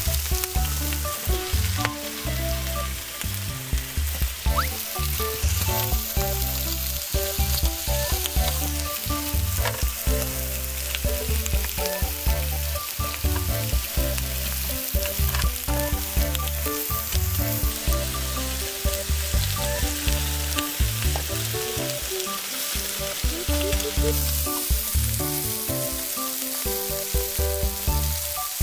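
Pork sizzling and frying on a hot mookata grill pan, a constant crackling hiss, with background music whose bass notes step along underneath.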